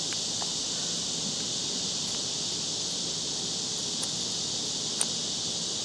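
Steady high-pitched chorus of insects, with a few faint clicks as a knife works the hard, scaly skin of a cooked gar, the sharpest about five seconds in.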